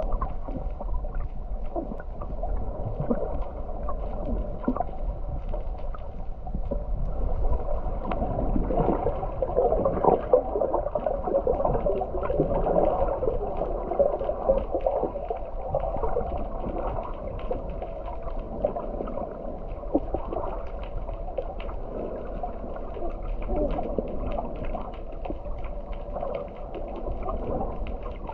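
Muffled underwater sound picked up by a submerged camera: a steady rumble of moving water, dull and cut off at the top, with many small crackles and clicks throughout.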